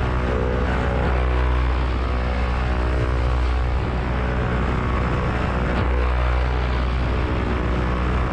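Paramotor engine and propeller running steadily, a constant-pitch drone with no change in speed.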